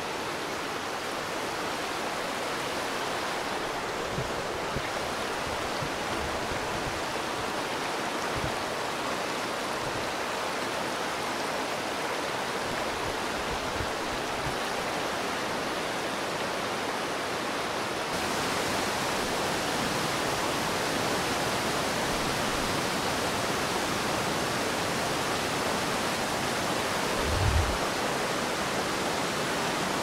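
Steady, even rush of the Reekie Linn waterfall, swollen in spate. About 18 seconds in, the sound shifts to a slightly louder, brighter rush of the river running fast close by. A few brief low thuds are heard, the strongest near the end.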